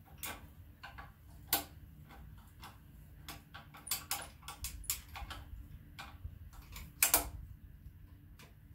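Socket ratchet clicking in short, irregular runs as bolts on the side of an engine block are worked loose, with louder metallic clicks about a second and a half in and about seven seconds in.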